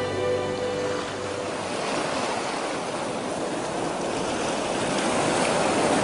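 Sea waves breaking and washing up a sandy beach: a steady hiss of surf that swells a little toward the end. A held chord of music fades out about a second in.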